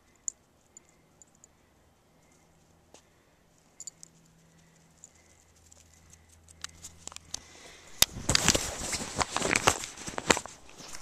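Handling noise on a Flip Video camcorder: faint scattered clicks at first, then about eight seconds in, a loud dense rustling and crackling with many sharp clicks as something rubs against the microphone.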